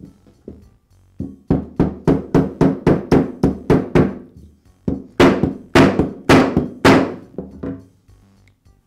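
Rubber mallet tapping a Dremel Multi-Max's armature into its housing assembly, seating the shaft: about a dozen quick taps, about four a second, then after a short pause six or so louder blows.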